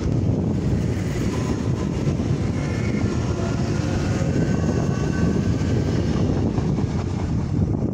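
Renfe Civia series 464 electric commuter train running alongside the platform: a steady rumble of the cars rolling past, with a faint whine in the middle.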